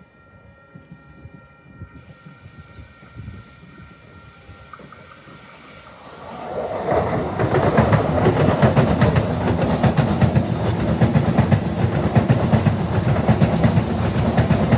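A train approaching and then passing close by. Faint at first, its rumble swells sharply about six seconds in into loud wheel-and-rail noise with rapid clickety-clack that carries on to the end.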